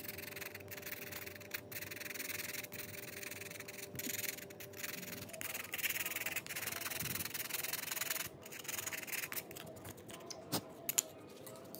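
Sandpaper scratching back and forth over the metal ends of AA Ni-MH battery cells, scouring off oxide so that solder will stick to them. The rubbing stops about two-thirds of the way through, followed by a couple of light clicks.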